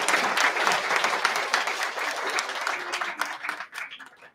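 Audience applauding with many quick claps, thinning out and dying away in the last second.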